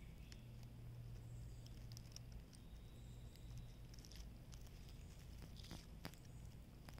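Box turtle biting and chewing cantaloupe: faint, scattered wet clicks and smacks of its beak in the soft melon, several close together about six seconds in, over a faint steady low hum.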